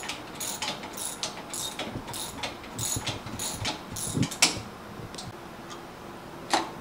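Hand tool working metal fittings on a bench-mounted motor and machine: a regular series of sharp ratcheting clicks, about three a second, that stops about two-thirds through, followed by a louder knock near the end.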